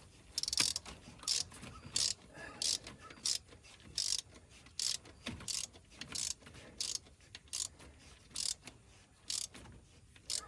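Hand ratchet clicking in a steady series of short back-swings, about one and a half strokes a second, as spark plugs are ratcheted tight.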